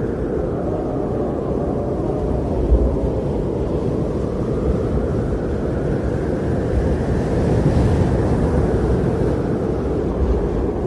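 Strong blizzard wind blowing steadily with a deep low rumble, swelling in a long gust in the second half.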